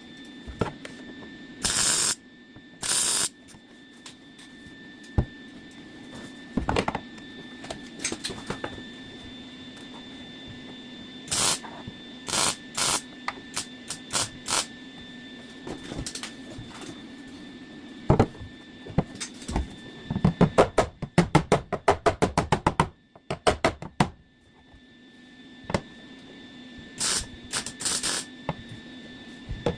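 Welder tacking a steel patch panel into a car floor and inner rocker, in several short bursts of crackle about half a second each. A quick run of sharp metal knocks sounds in the middle, over a steady low hum.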